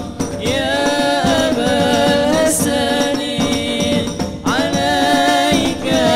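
A male lead voice singing a devotional song through a PA with long held, ornamented notes, accompanied by a hadrah ensemble of frame drums and large hand drums.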